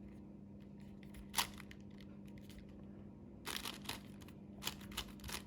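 Plastic layers of a 5x5 Rubik's cube being twisted by hand: one click about one and a half seconds in, then quick runs of clicks and clacks from about three and a half seconds on, over a faint steady hum.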